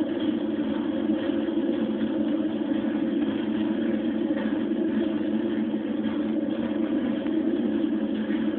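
Steady, unbroken electronic drone from an experimental sound piece: a dense low rumble with a hiss above it, with no change in pitch or level.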